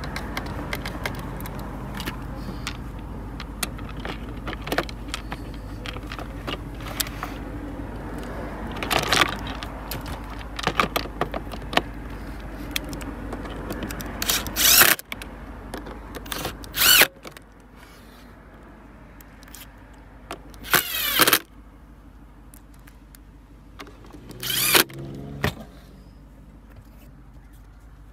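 Cordless drill driving screws into a plastic instrument-cluster housing in several short bursts, with clicks and knocks as the housing and screws are handled.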